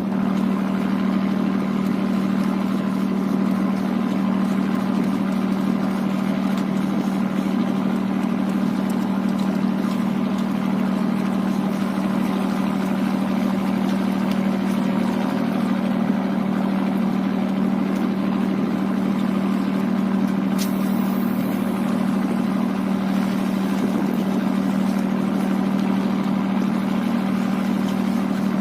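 Boat engine running steadily at low revs, a constant even hum with no change in speed.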